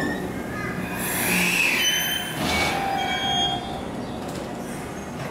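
JR 383-series electric train pulling slowly out of the station, its wheels squealing on the rails under a low running rumble. The squeal wavers in pitch, strongest about one to two seconds in.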